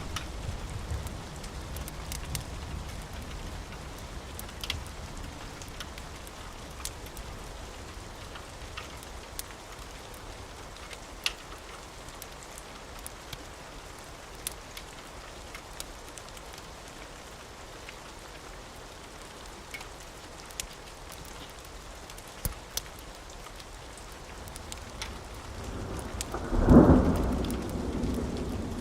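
Steady rain with sharp pops from a crackling wood fire scattered through it. A low rumble fades at the start, and a loud roll of thunder rumbles in near the end.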